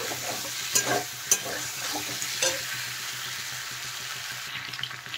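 A steel spatula stirs fried cauliflower florets through thick spice paste in a metal wok, sizzling in hot oil and ghee. A few scrapes of the spatula against the pan come in the first half, then only the faint sizzle.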